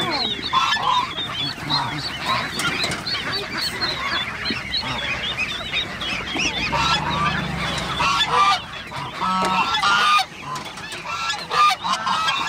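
Many caged poultry calling over each other: a dense, continuous chorus of short high chirps and peeps, with honking calls mixed in, some of them clearer about nine seconds in.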